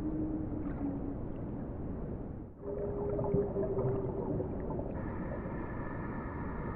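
Whale calls in a hissy underwater recording: long, held moans, each keeping a steady pitch and sagging slightly at the end. There is a brief dropout about two and a half seconds in, and near the end a higher steady tone joins.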